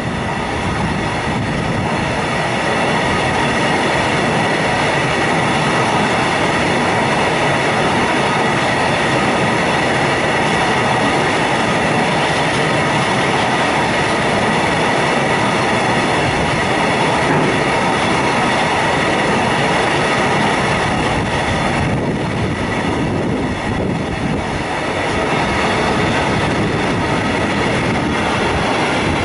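Freight train of empty container flat wagons rolling past on the track: a steady rumble and rattle of wheels on rail, with a thin high ringing tone running over it.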